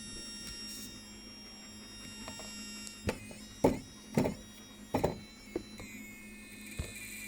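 Water bottle giving a series of short sharp pops and creaks, about six of them spaced roughly half a second to a second apart, over a steady electrical hum.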